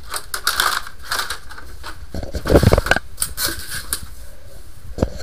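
Gloved hands handling plumbing gear, an inspection-camera cable and hard plastic cases, making irregular rustling and clattering. The loudest clatter comes a little past halfway, and a sharp click comes near the end.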